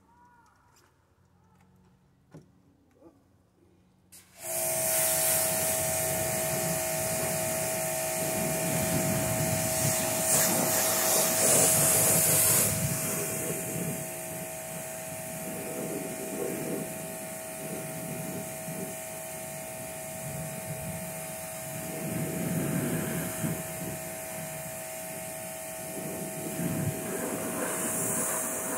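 Pressure washer switching on about four seconds in and running steadily: a motor whine under the loud hiss of the spray as it washes mud off a side-by-side. The spray is loudest for the first several seconds, then settles lower.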